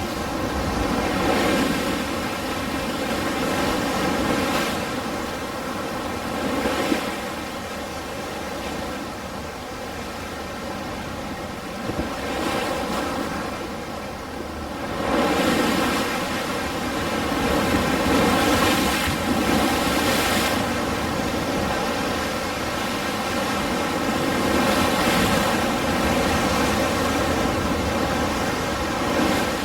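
Ocean surf: waves washing in and breaking as a steady hiss that swells and falls back every few seconds, with bigger surges about halfway through and again near the end. A faint steady hum runs underneath.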